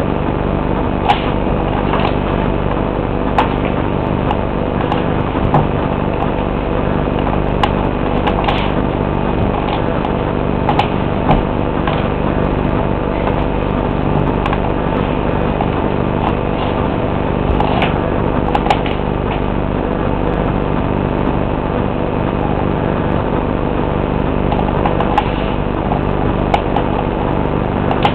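A steady hum made of several low tones, with scattered sharp knocks of hard pointe shoe boxes against a hard floor as the dancer rises and steps.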